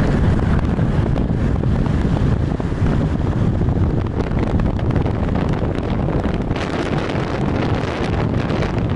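Car driving along a road: a steady rumble of engine and tyres, with wind buffeting the microphone.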